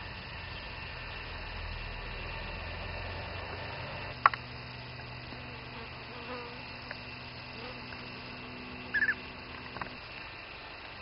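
Steady outdoor background hiss and hum, broken by one sharp click about four seconds in, where the hum underneath changes. Near nine seconds a bird gives a brief burst of quick chirping notes.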